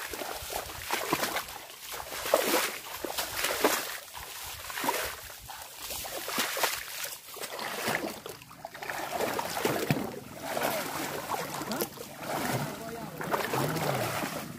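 Legs wading through shallow, muddy swamp water: a sloshing splash with each stride, about one a second.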